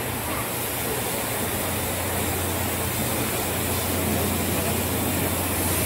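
JNR Class C57 steam locomotive C57 180 rolling slowly into the platform, a steady hiss of steam over a low hum that strengthens about two seconds in.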